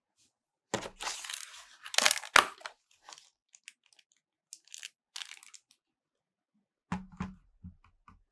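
Cardboard packaging rustling and a plastic bag crinkling as a keyboard box is unpacked, loudest with two sharp scrapes about two seconds in and fainter crinkles after. A few dull knocks near the end.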